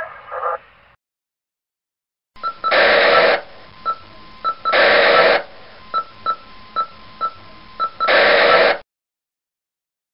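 Walkie-talkie radio sounds: the thin, band-limited tail of a radio voice fades out within the first second, and after a short silence, radio static hiss starts about two seconds in. The hiss is broken by three loud bursts of static and by about eight short, high beeps, and it cuts off suddenly near the end.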